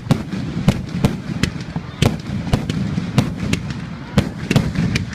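Fireworks display: sharp bangs of bursting shells, irregular, about two a second, over a continuous low rumble.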